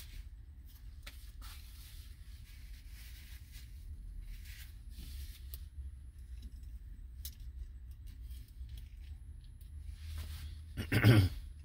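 Low steady hum of a parked car's cabin with faint scattered handling noises, and one short loud burst with a strong low component about a second before the end.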